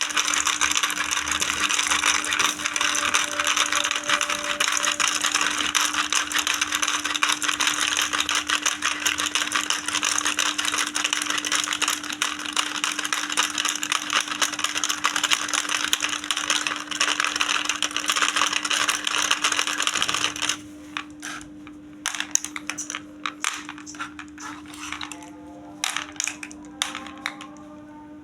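Small plastic toy balls of a children's fishing game rattling and clattering together in a dense, continuous stream. About 20 seconds in the clatter stops suddenly, leaving scattered single plastic clicks and taps, with a faint steady hum underneath throughout.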